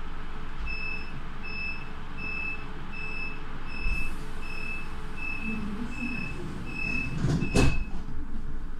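S-Bahn coach's door-closing warning: ten short high beeps, about three every two seconds, over the steady rumble of the train. Near the end the doors shut with a loud bang, the loudest sound here.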